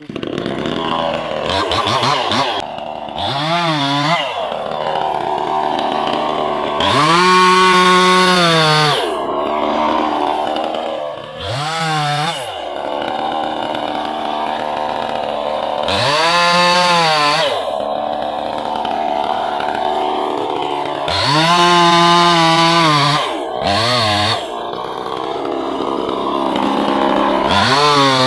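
A two-stroke petrol chainsaw revved up hard again and again, its pitch rising to a high whine and dropping back to a lower run between cuts as it saws into wood.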